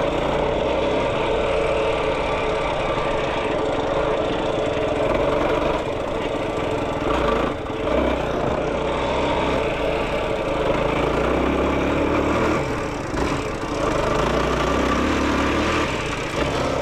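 Yamaha YFZ450R sport quad's single-cylinder four-stroke engine running under way, with the revs dipping briefly twice.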